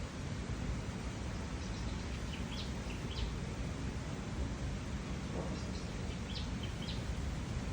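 Steady outdoor background noise with faint, short bird chirps in two small clusters, about a third of the way in and again past the middle.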